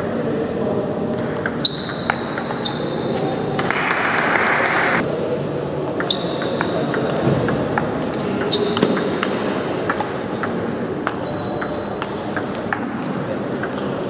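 Table tennis ball being played back and forth: the plastic ball clicking sharply off bats and the table, many quick pocks, several with a short ringing ping after them. A brief rushing noise comes about four seconds in.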